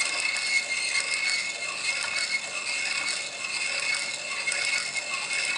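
Hand-cranked piston ring filer grinding one end of a piston ring as the crank is turned: a continuous grinding rasp with a steady high whine. The ring end is being filed to open up its end gap.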